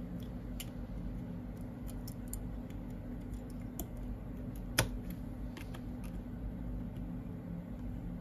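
Small clicks and taps as an iPhone XR logic board is fitted and pressed down into its housing by hand, with one sharper click about five seconds in. A steady low hum runs underneath.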